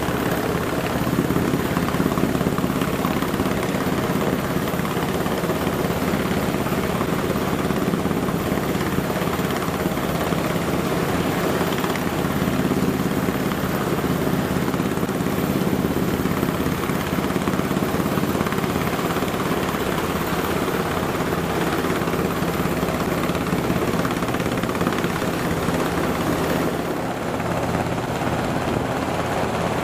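Sikorsky S-92 helicopter hovering close overhead: a steady, loud rotor beat over the whine of its twin turboshaft engines.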